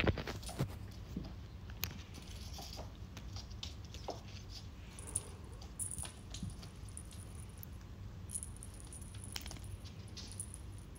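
A kitten's paws and a striped wand toy tapping and clicking on a glass tabletop as it plays: scattered light taps and clinks, with a quick cluster of them right at the start.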